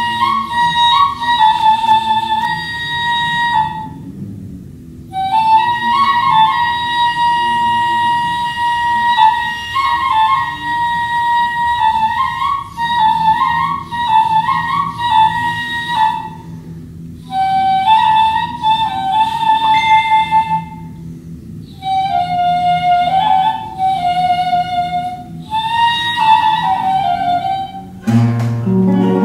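Persian ney (end-blown reed flute) playing a slow, ornamented melody in several phrases separated by short breath pauses. Near the end a flamenco guitar chord is struck and rings on.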